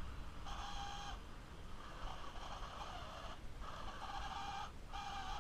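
Toy remote control car's electric drive motor and gears whining in four on-off bursts as the throttle is worked, each burst lasting up to about a second and a half.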